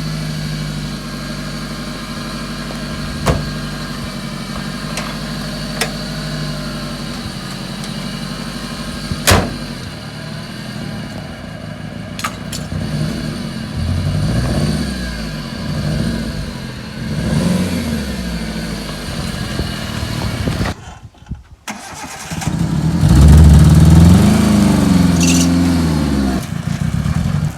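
Hyundai Santro Xing's petrol engine running after a year standing unused: a steady idle at first, then revved up and down again and again. It dips out briefly about three quarters of the way in, then revs harder near the end. A couple of sharp clicks sound early on over the idle.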